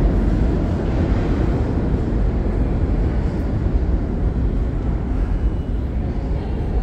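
Low, steady rumble on a subway platform, easing slightly over the seconds.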